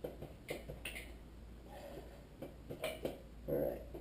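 Scattered light clicks and taps, about five or six, from metal engine parts being handled while the crankshaft is worked out of the engine block.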